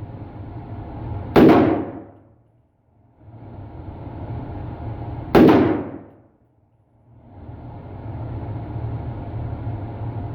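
Two shots about four seconds apart from a home-built .300 Blackout rifle, each a sharp report that trails off briefly.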